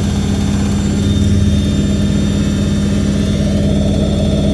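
Hoover A3190 Electron 1100 De Luxe washing machine (1982) on its spin cycle, the drum and motor spinning at a steady high speed with a loud, even hum.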